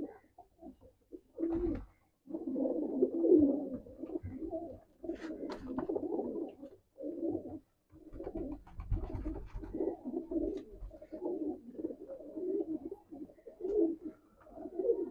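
A loft flock of domestic pigeons (Sialkoti and Rampuri dub-wala breeds) cooing. Several birds call over one another almost without pause from about two seconds in.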